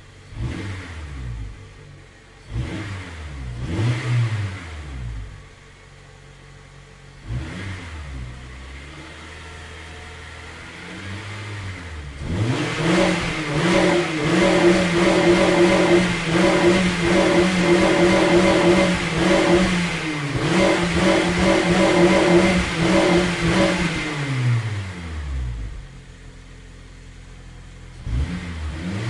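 Car engine revved in a few short blips that rise and fall back, then held at high revs at a steady pitch for about ten seconds before dropping back to idle, with one more quick blip near the end.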